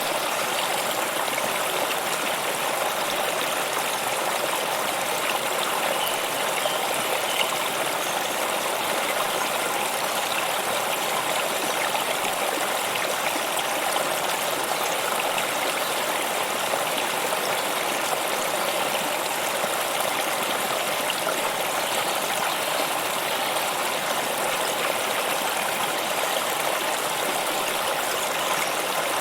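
Running water of a stream, a steady, even rush with no breaks.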